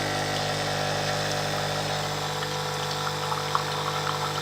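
Nescafé Dolce Gusto Oblo coffee machine's pump running with a steady hum, pushing hot rinse water through the machine to flush out descaling vinegar. A few light ticks sound over the hum later on.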